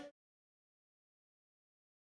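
Dead silence: the end-screen music cuts off abruptly at the very start.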